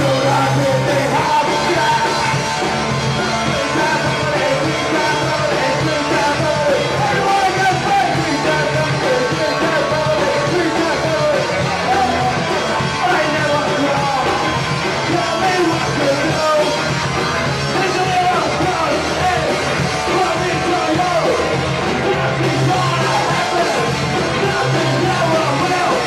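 Punk band playing live, with a full drum kit and a yelled, sung vocal over a loud, steady wall of band sound.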